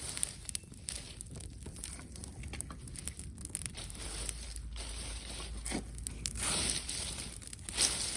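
Wood campfire crackling with many small sharp pops, along with the rustle and crunch of branches and twigs being handled and fed in. There are louder rushes of noise near the end.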